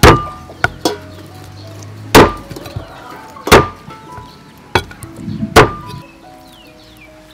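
Heavy cleaver chopping through raw bone-in meat on a thick wooden chopping block: four loud chops about one and a half to two seconds apart, the last the loudest, with a few lighter knocks between them. Soft background music plays under the chops.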